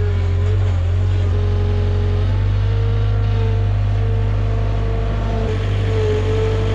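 Skid steer loader's engine running steadily at working speed close by, a loud even hum with a steady whine over it.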